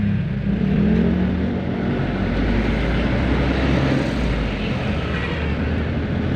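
Steady rushing motor-vehicle noise with a low engine hum underneath.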